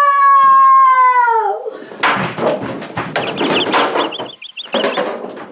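A long, high, drawn-out cry held for about a second and a half and falling in pitch as it ends, followed by a rapid jumble of knocks and bangs with a few short high squeaks among them.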